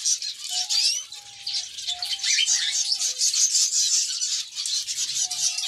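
Canaries and other small aviary birds chirping and twittering in a dense, rapid high chatter, with a few quick rising calls and short level whistled notes lower in pitch.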